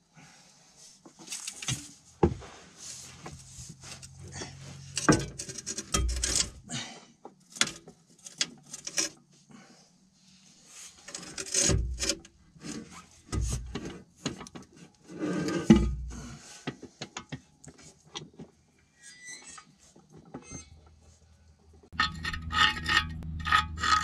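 Metal clinks, scrapes and several dull knocks as the oil pan is worked loose and lowered from beneath the Ford 555 backhoe's diesel engine. Near the end, a tool scraping through thick sludge inside the removed pan.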